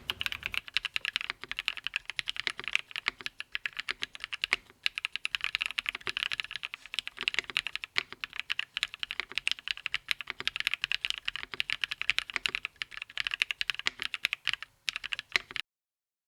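Fast, continuous typing on a Fox Lab Sunset 80 gasket-mounted mechanical keyboard with Kailh Cream POM switches, a polycarbonate plate and Cherry-profile keycaps. Many keystrokes follow each other quickly, then the sound cuts off abruptly near the end.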